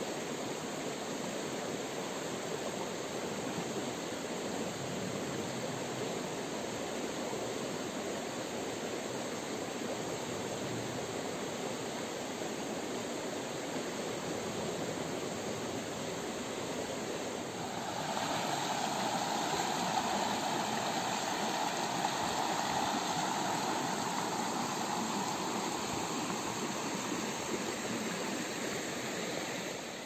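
Shallow creek water running over rocks, a steady rushing. About eighteen seconds in, a louder rushing sound joins on top and stops shortly before the end.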